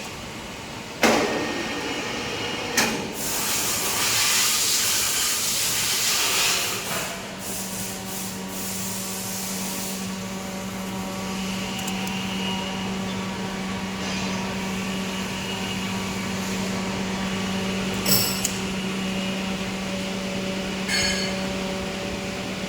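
Auto-feeding tissue log band saw cutting machine running. There is a sharp knock about a second in and another near three seconds, then a hiss for a few seconds. After that a steady hum sets in, with a couple more clicks near the end.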